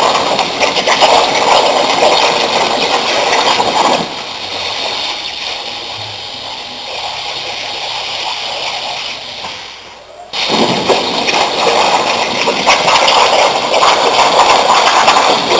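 CNC plasma torch cutting steel plate: a loud, steady hiss of the arc. About four seconds in the cut stops and a quieter hiss carries on; just after ten seconds the arc fires again and cuts on loudly.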